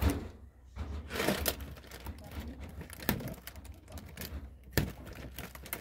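Dry woven palm leaf crackling and rustling as the loose palm ends are trimmed off, with a scatter of sharp snips.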